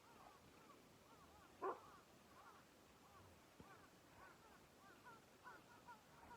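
Birds calling faintly in the background, a string of short, repeated arched chirps. About two seconds in comes one brief, sharp, louder sound, possibly a dog's short bark.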